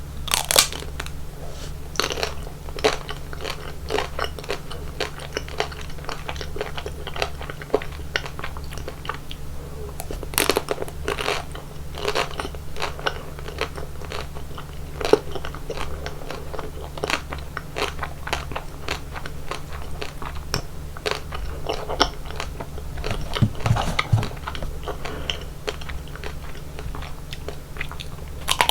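Close-miked biting and chewing of chocolate ice cream: irregular crunchy crackles throughout, with sharper cracks about half a second in and around ten seconds, over a steady low hum.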